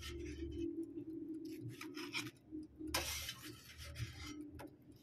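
Metal utensil scraping and rubbing against an air fryer basket and crisp pizza crust as a slice is lifted out, with rasping strokes near the start and again about three seconds in. A faint steady low hum runs underneath.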